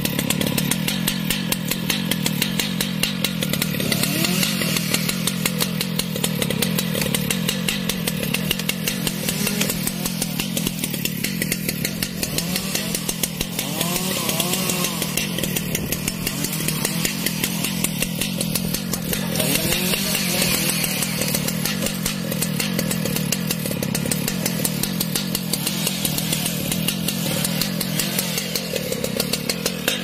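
Large Stihl two-stroke chainsaw running steadily, its engine note holding at an even pitch without revving up or down.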